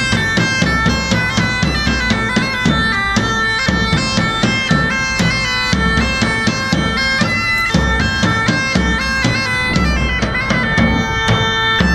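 Marktsack (German market bagpipe) playing a quick melody over a steady drone, with a davul bass drum beating under it.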